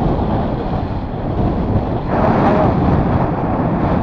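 GY6 150cc scooter running at about 25 mph, its engine and CVT heard under heavy wind noise on the microphone. The CVT clutch is coming apart and out of balance, and is making a weird sound.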